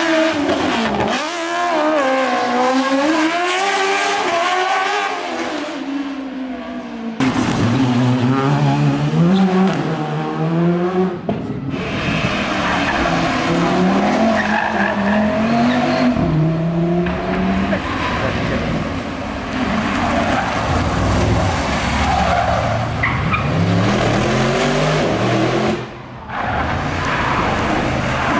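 Rally cars' engines revving hard, pitch climbing and dropping again and again through gear changes and lifts. The sound changes abruptly about seven seconds in and dips briefly shortly before the end.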